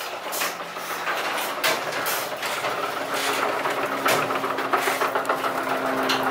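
Footsteps and camera handling while walking, with a steady low engine hum setting in about three seconds in.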